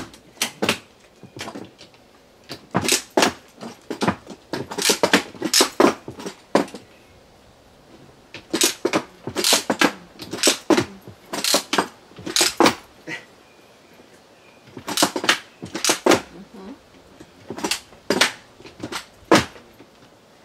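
Clicks and knocks from homemade adjustable-height stilts and their metal frames as the height is raised while standing on them. The clicks come in several clusters of a few strokes each, with short pauses between.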